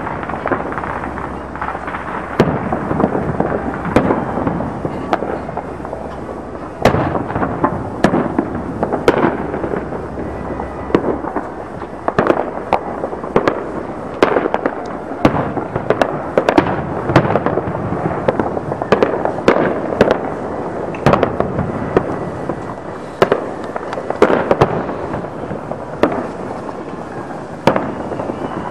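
Aerial fireworks shells bursting one after another: dozens of sharp bangs at irregular intervals over a continuous rumble, coming thickest in the middle stretch.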